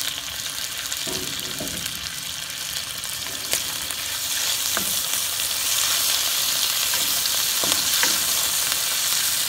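Cubes of pork belly sizzling in their own fat in a nonstick wok, stirred with a wooden spatula that gives a few brief taps and scrapes against the pan. The fat is rendering out as the pork begins to brown. The sizzle grows louder about halfway through.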